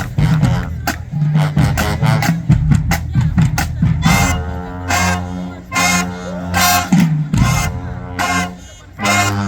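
HBCU marching band playing: a snare-and-bass-drum cadence of rapid strokes for the first few seconds, then the brass section comes in with loud, short, punched chords over the drums.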